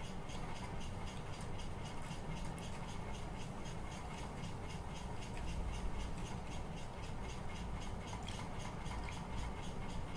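Steady low hum with a fast, faint, regular ticking, about five ticks a second.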